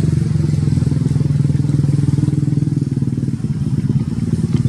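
A small engine running steadily: a low, even drone of rapid pulses.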